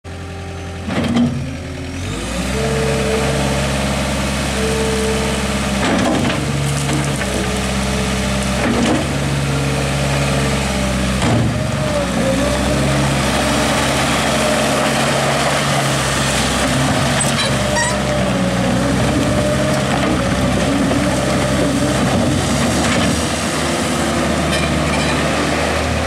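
New Holland LS170 skid steer loader's diesel engine coming up to a steady high run about two seconds in as the machine drives and turns, with a few sharp clunks and, from about halfway, a wavering whine from the drive.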